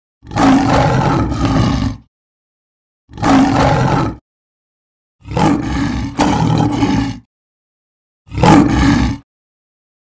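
Lion roar sound effects: four separate short roars, each about one to two seconds long, cut apart by clean gaps of silence.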